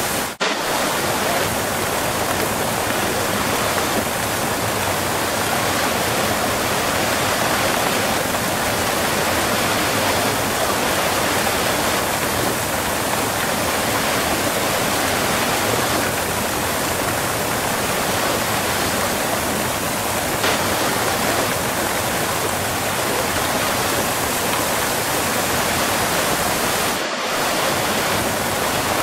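Close-up waterfall: a steady, dense rush of falling and splashing water. The sound drops out for an instant twice, about half a second in and near the end.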